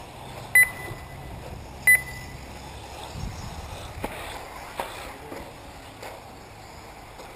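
Two short, loud electronic beeps about a second and a half apart, typical of an RC race timing system. A few faint knocks follow.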